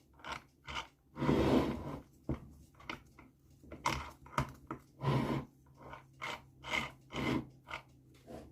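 Hand work on a small engine's opened gearbox case: a string of short irregular clicks, knocks and rustles of metal parts and tools being handled, with a longer scraping rustle about a second in and another around five seconds in.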